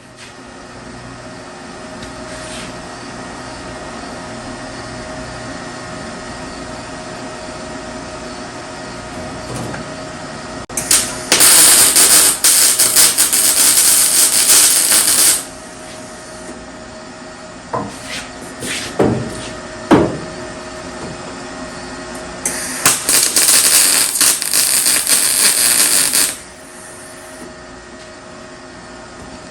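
Welding arc crackling in two short stitch welds of about four seconds each on a car's steel quarter panel, with a few sharp clicks between them, over a steady background hum.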